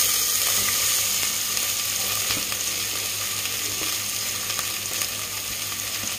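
Sliced onions sizzling as they go into hot ghee in an aluminium pressure cooker, a steady frying hiss that slowly dies down as the onions cool the fat.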